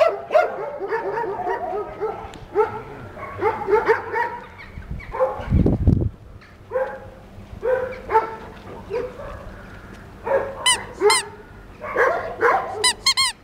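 Several dogs barking and yelping in short, repeated calls, with a few high-pitched yelps near the end. There is a dull thump about halfway through.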